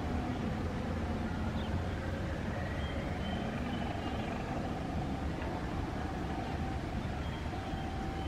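Indonesian diesel-electric locomotive approaching with a train of passenger coaches, its engine a steady low rumble.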